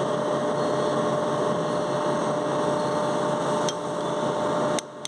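A steady mechanical hum with a constant tone, a machine running, that cuts off suddenly near the end. Over it a hammer strikes a spanner twice near the end, driving loose a spindle's check nut.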